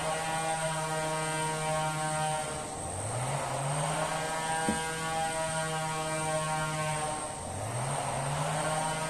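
Two-stroke chainsaw running at high revs through merbau hardwood. Twice the engine note sags and climbs back up, with a burst of noise each time, and there is a single sharp click about halfway through.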